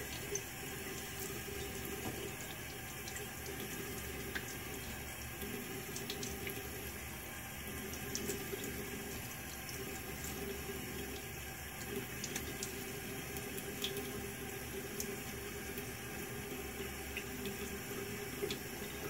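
Bathroom sink tap running steadily, with small scattered splashes as shaving lather is rinsed off the face.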